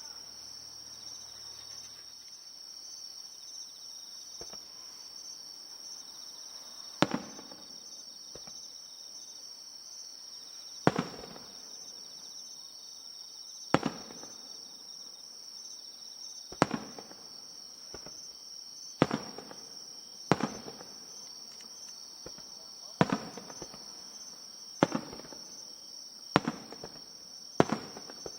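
Aerial firework shells bursting, about ten sharp booms coming one to four seconds apart from about seven seconds in, each with a short echoing tail. Steady high chirping of insects runs underneath.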